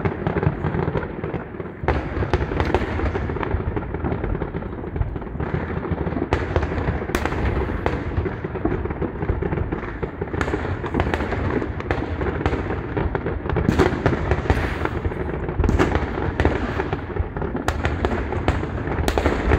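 A dense barrage of aerial firework shells bursting: a continuous rumble and crackle of many explosions, with sharper, louder bangs standing out every few seconds in the second half.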